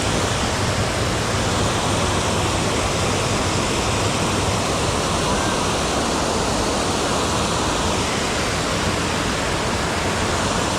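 Steady rushing noise of riding in the rain: rain and wind on the microphone, with no breaks or distinct events.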